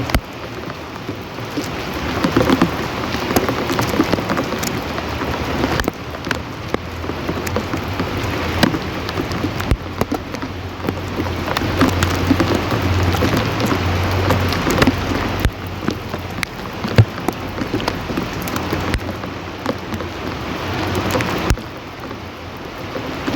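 Rain falling steadily, with many separate drop impacts on a surface. A low rumble runs for a few seconds around the middle.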